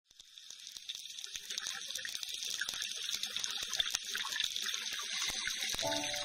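Underwater ambience, a hissing wash full of dense crackling clicks, fading in at the start. A few sustained music notes come in near the end.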